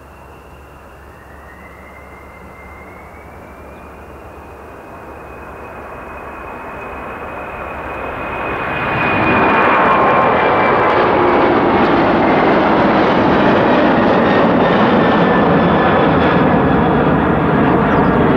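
Boeing 747-400's four General Electric CF6 turbofan engines spooling up to takeoff thrust on a touch-and-go. A thin whine rises in pitch over the first few seconds while the jet noise grows, becoming loud about nine seconds in as the airliner climbs out close by, then holding steady.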